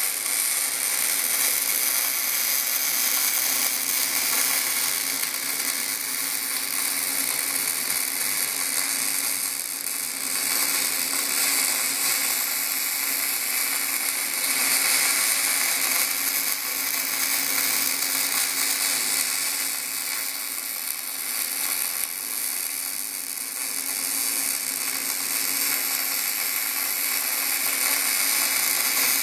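Short-circuit MIG welding arc, .035 in. E70S-3 steel wire under 75/25 argon/CO2, running steadily as an automatic Boa308i bore welder's torch lays weld around the inside of a small hole.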